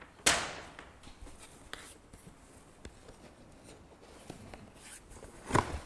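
A cardboard shoebox and a paper shopping bag being handled. There is a loud rustling knock about a quarter second in, then faint scraping and light finger taps on the box, and another short rustle near the end.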